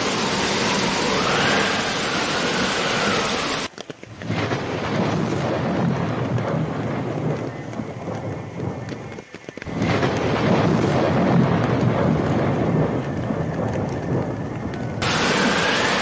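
Heavy rain hissing steadily, then from about four seconds in a deep rolling rumble of thunder over the rain. The sound cuts off abruptly near four and again near nine and a half seconds, and the full bright hiss of rain returns near the end.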